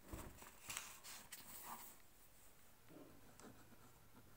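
Faint handling and rubbing of a paper notebook with a few soft taps in the first two seconds, then a pen scratching lightly on paper as writing begins.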